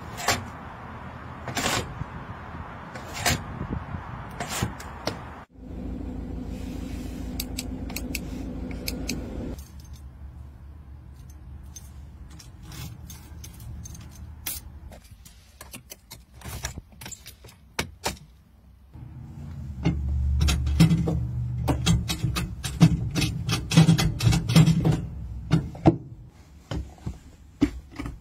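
A string of car sounds: an engine running, then a quieter stretch of sharp clicks and jangling keys as a key goes into the ignition, then from about two-thirds of the way through an engine running loud and low, with more clicks over it.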